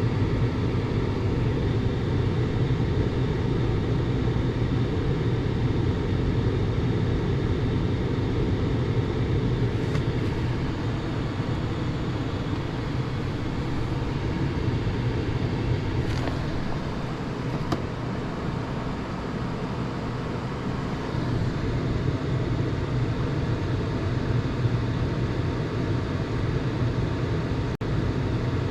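Gas furnace running, its blower and fans making a steady low rumble with a few faint clicks over it. The unit is logging an ignition prolonged failure, its flame dropping out because the flame sensor sits just outside the flame.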